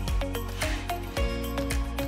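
Background music with held melodic notes over a regular beat.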